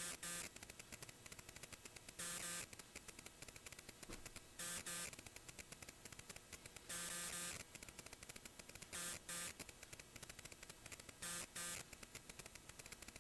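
Rapid crackling static, like electrical interference, broken by short buzzing bursts about every one to two seconds.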